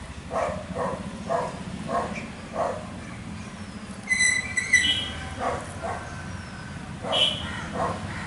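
A dog barking in a run of short barks, about two a second, pausing near the middle and starting again. A bird gives a short, high, stuttering call about four seconds in.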